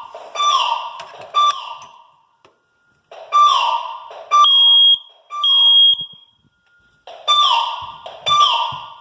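Fire alarm sounding in groups of three tones about a second apart, each group followed by a short pause: the three-pulse temporal fire-evacuation pattern. Partway through, a smoke detector's high-pitched beep sounds twice, out of step with the others.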